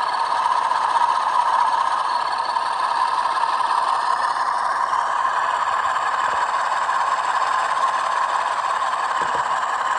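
Bachmann Class 47 model locomotive's sound decoder playing the diesel engine at full revs through its small onboard speaker: a steady, rattly drone.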